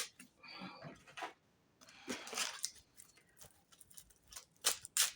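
Tarot cards being handled on a table: a few light clicks and soft sliding rustles.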